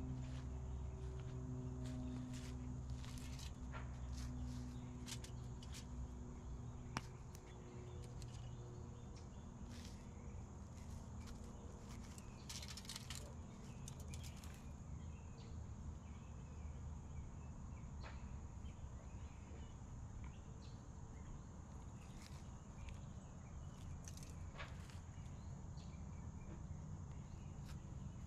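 Faint outdoor ambience: a steady high-pitched insect drone with scattered short chirps and clicks over it. A low hum is strongest in the first several seconds, then eases.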